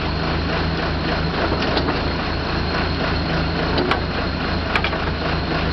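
Auger drill rig's engine running steadily with a low, even drone, and two sharp clicks about four and five seconds in.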